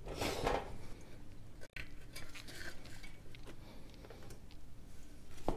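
Tire irons clinking and scraping against a spoked dirt bike rim as the tire bead is levered over it: faint, scattered metallic clinks with some rubbing.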